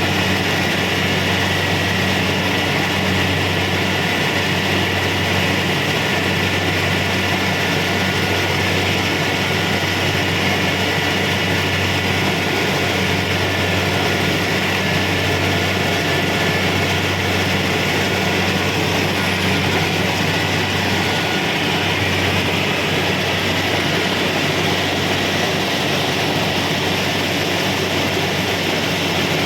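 Kubota DC-70 Pro combine harvester running steadily as it works, a loud continuous diesel engine drone with a rush of machinery noise over it.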